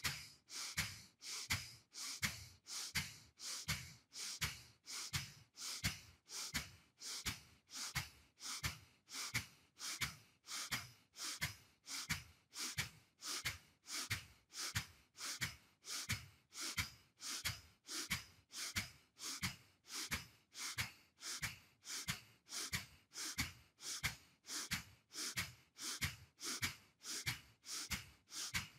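A man doing Kapalabhati breathing, forcing out short sharp exhalations through the nose in an even rhythm of about three every two seconds. Each puff is an active push from the belly, with the inhale following passively between them.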